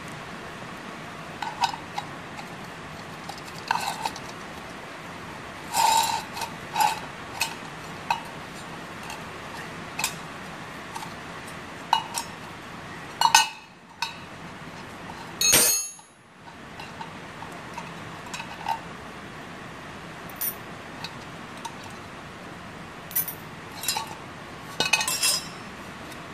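Small metal clinks and taps at irregular intervals, with a louder clatter a little past halfway: nuts, washers and blade bolts being handled and set down on a concrete floor as the blades come off a lawn mower's steel blade disc.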